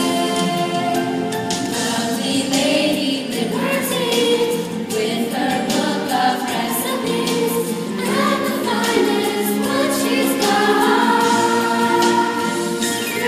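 A group of voices singing a song together over musical accompaniment.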